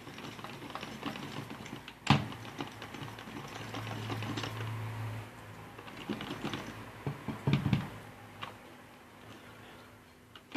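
Mixing cake batter in a bowl: a utensil scraping and clicking against the bowl, with a sharp knock about two seconds in and a cluster of knocks about three-quarters of the way through.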